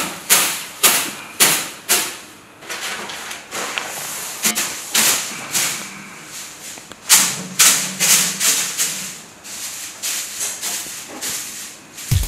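A soft hand broom swishing in repeated quick strokes, sweeping and dusting.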